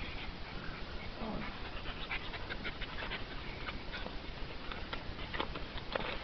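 Small white terrier panting while it chews a deflated plastic beach ball, with scattered crinkles and clicks of the plastic through the middle and latter part.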